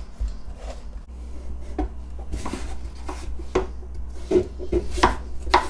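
A metal spoon scraping the stringy pulp out of a pumpkin, then a knife cutting through firm raw pumpkin on a wooden chopping board. The cutting is a run of irregular crunches and knocks, thicker in the second half.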